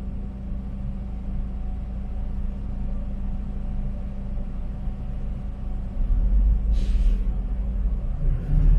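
Bus interior: the engine and road make a steady low rumble that grows louder about six seconds in, with a brief hiss of air just after.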